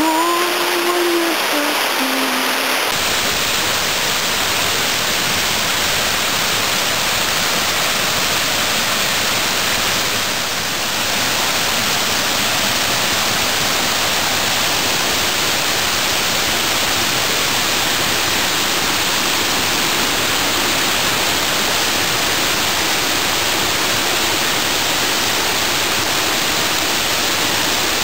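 A rapids-like waterfall cascading over a stone ledge, its water rushing in a steady, even roar. A short pitched tone is heard in the first couple of seconds.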